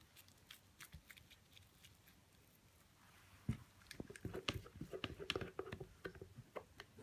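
Quiet handling sounds of thick soap batter being pressed into a wooden loaf mould with a gloved hand: faint sticky clicks at first, then from about three and a half seconds in a denser run of louder clicks and a few light knocks.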